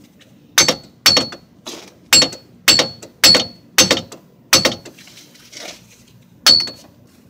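Steel hammer striking the front wheel hub bearing of a 2005 Toyota Prius to knock it out of the steering knuckle. There are about eight sharp metallic blows, roughly two a second, each with a short ring. After a pause, one last blow lands near the end.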